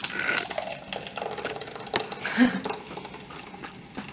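Blended gazpacho, a thick puréed tomato soup, pouring from a plastic blender jar into a bowl, with one brief louder sound a little past halfway.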